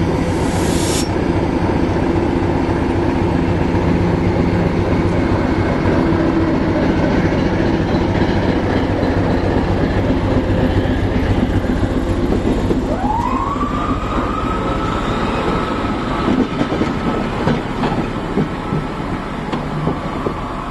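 Class 73 electro-diesel locomotive E6047 running on its diesel engine as it pulls away past, with wheels clicking over rail joints. A short high hiss comes in the first second, and about two-thirds of the way through a squeal glides up in pitch and then holds steady.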